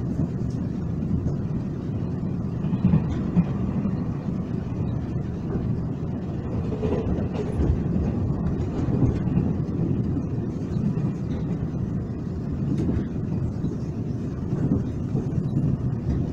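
Taiwan Railways express train running along the line, heard from inside the passenger car: a steady low rumble with a few faint, irregular clicks.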